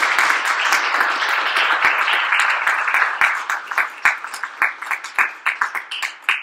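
Small audience applauding: dense clapping that thins out into a few scattered separate claps near the end and then stops.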